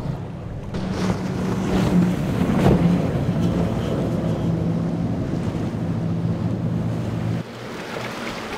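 Boat engines running over the noise of waves, with wind on the microphone. The engine sound drops abruptly about seven and a half seconds in.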